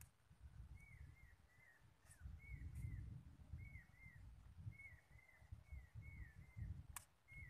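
A bird calling over and over: short, high, downward-slurred notes, mostly in pairs, about one pair a second, over a faint low rumble. A single sharp click comes near the end.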